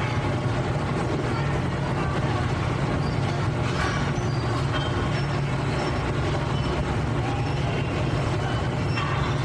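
Factory-floor machinery ambience: a steady low mechanical drone with clatter over it, and a short burst of noise about four seconds in and again near the end.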